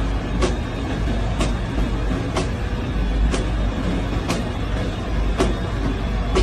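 Steady low vehicle rumble, with a sharp click about once a second.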